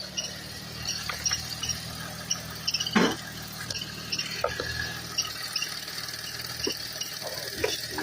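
Buick Enclave's 3.6-litre V6 idling steadily, with short high squeaky chirps repeating over it. A single metallic clank about three seconds in and a few lighter clinks later, typical of tools on the car.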